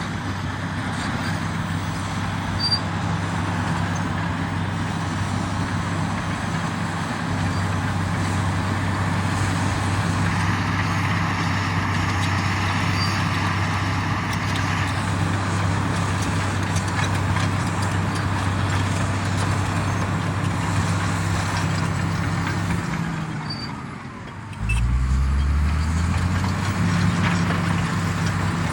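Komatsu D85EX bulldozer's diesel engine running steadily. Near the end the sound drops away briefly, then comes back suddenly and climbs in pitch as the engine revs up.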